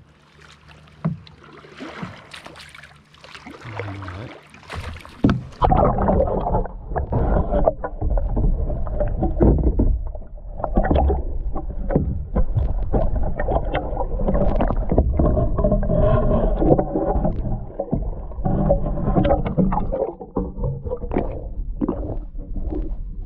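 Light splashing of water around a kayak. About five seconds in, the GoPro goes under the lake surface and the sound turns loud, muffled and churning: water sloshing and gurgling around the submerged camera.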